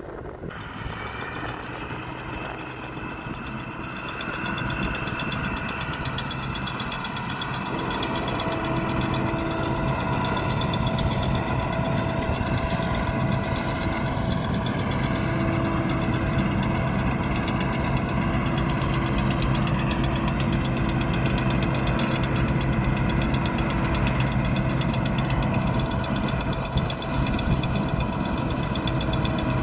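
Combine harvester's diesel engine running steadily, with machinery hum and several steady high tones over it. It grows louder over the first several seconds, then holds steady.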